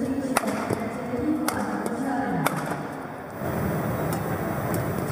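Badminton rally: three sharp racket strikes on the shuttlecock about a second apart, then, a little past halfway, the arena crowd breaking into cheering and applause as the point is won.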